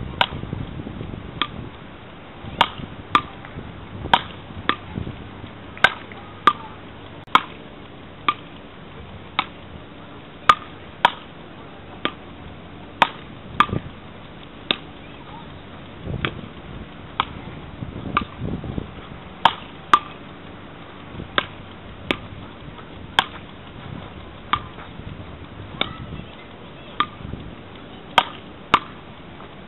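Beach paddle ball rally: wooden paddles knocking a small ball back and forth, a sharp clack roughly every half second to a second.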